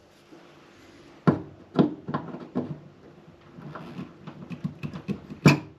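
A mains plug knocking and scraping against a wall socket as it is lined up and pushed in. Starting about a second in there are a few separate clicks, then a run of small ticks, then a sharper click near the end as the plug seats.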